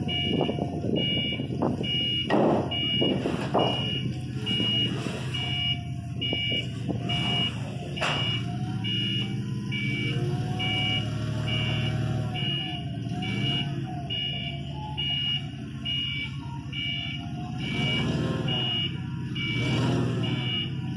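Propane-powered Caterpillar forklift backing up under load: its reversing alarm beeps in two tones together, evenly, about every 0.7 seconds, over the steady run of its engine. A few clunks come a couple of seconds in.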